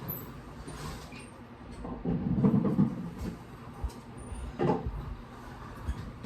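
Muffled household knocks and a low rumble from someone moving about off-camera in another room, loudest about two seconds in, with a few short knocks after.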